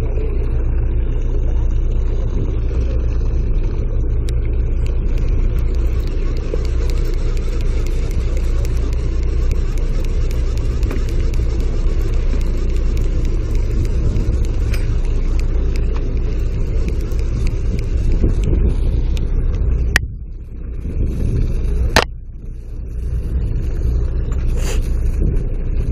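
Steady low rumble and hum of the fishing boat's engine mixed with wind and water noise. Two sharp clicks come near the end, with the rumble dipping briefly between them.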